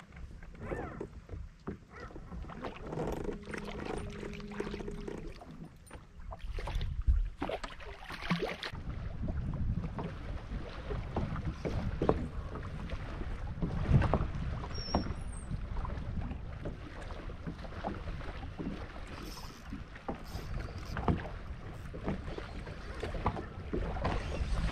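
Wind and water noise aboard a fishing boat, with scattered knocks and clicks and a brief low hum a few seconds in.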